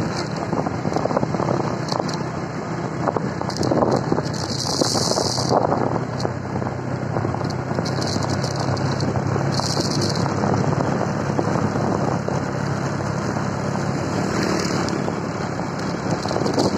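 Wind rushing over the microphone on a moving motorbike, with the bike's engine running steadily underneath; the wind surges briefly a few times.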